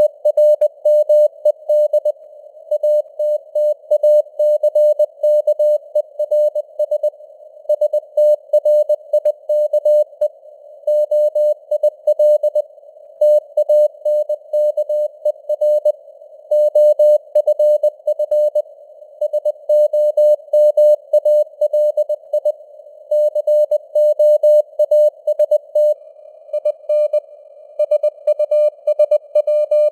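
Morse code (CW) sent at 20 words per minute: a single steady mid-pitched tone keyed on and off in dots and dashes. It sits in a narrow band of simulated radio static, like a receiver's hiss through a CW filter.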